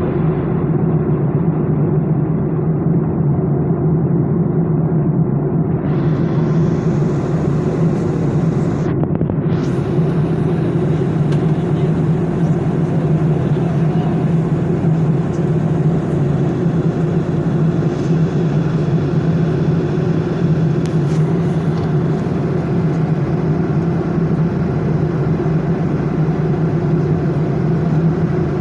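Small propeller airplane's engine running steadily in flight, heard from on board as a constant low drone.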